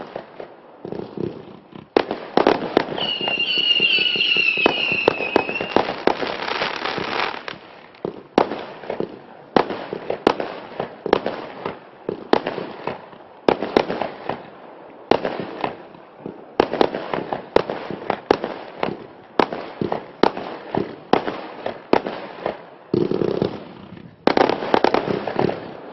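Klasek 536-shot compound fireworks cake firing in rapid succession: sharp shot reports and bursting stars. A few seconds in comes a dense stretch of crackling with a high whistle, then single shots follow steadily at about one to two a second.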